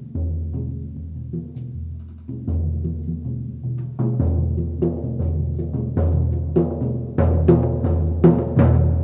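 Instrumental rock band playing: held low electric-bass notes that step from pitch to pitch, with drum and cymbal hits that grow louder and busier from about four seconds in.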